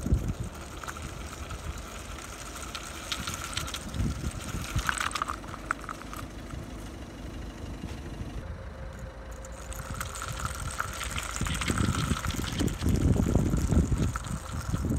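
Small electric gear motors of a homemade wooden RC buggy with can wheels whining faintly as it drives over wet, muddy ground, its wheels swishing through the wet mud. Low gusts of wind buffet the microphone, loudest near the end.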